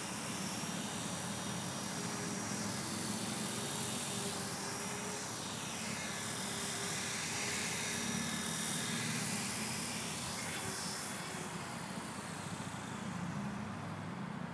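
E-flite Blade 450 electric RC helicopter in flight: the brushless motor and main rotor give a steady high whine with a buzz beneath, its tone sweeping up and down as the helicopter moves. The high whine dies away about twelve seconds in.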